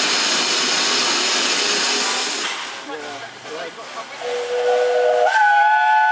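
Steam locomotive hissing loudly as steam escapes close by, easing off after about two and a half seconds. Then a steam whistle blows: a single steady note from about four seconds in, joined a second later by a higher, several-note chord.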